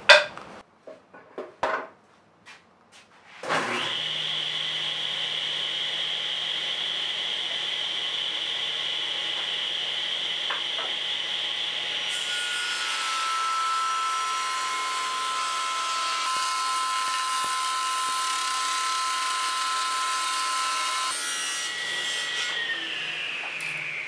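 A table saw is switched on about three and a half seconds in, after a few light knocks, and its blade whines steadily. Through the middle a strip of 2x4 is ripped lengthwise to width, adding a rough hiss to the whine for about nine seconds. Near the end the saw is switched off and the whine falls as the blade spins down.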